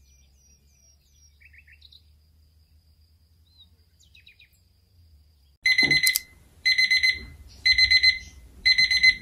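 Braun analog travel alarm clock going off about halfway in: groups of rapid, high-pitched beeps, about one group a second. It is the alarm set to signal a study break.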